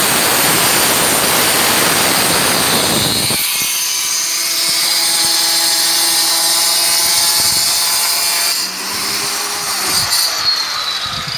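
Handheld electric stone-cutting saw (marble cutter) cutting a granite slab with a loud, harsh grinding. About three and a half seconds in, the grinding stops and the motor runs on with a steady whine. The whine drops in level and changes near the end, with a few knocks.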